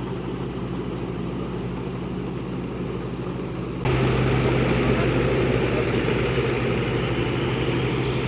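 Engine of a rice-harvesting tractor running steadily. About four seconds in it suddenly gets louder and brighter, then holds steady.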